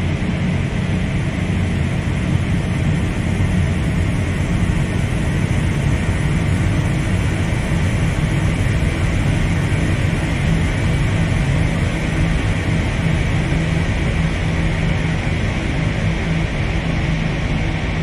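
Dark ambient drone music: a dense, steady wash of noise over a strong low rumble, with no beat.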